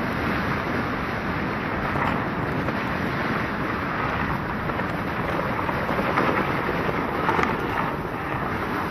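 Steady rushing noise of wind buffeting the microphone, with no gunfire.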